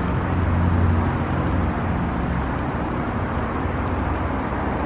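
Steady outdoor vehicle and traffic noise, with a low engine hum that fades about two and a half seconds in.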